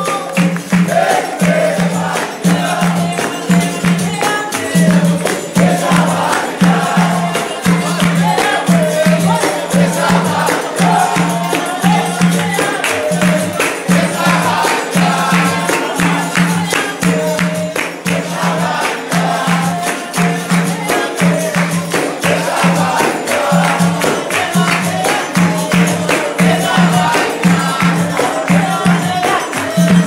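Capoeira roda music: berimbau and pandeiro playing a steady, even rhythm, with a group singing along and clapping in time.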